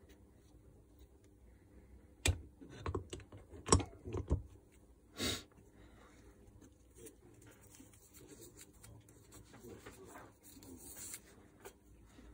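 Gloved hand working thick grease into a planetary gearbox housing and handling its metal gears and plate: a few sharp clicks and taps between about two and four seconds in, a short rustle about five seconds in, then faint handling sounds.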